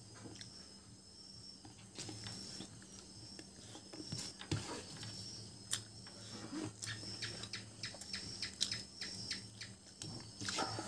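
Crickets trill steadily in the background over a low hum. Close, sharp clicks and smacks come from eating rice and fish curry by hand: fingers mixing food on the plate and chewing.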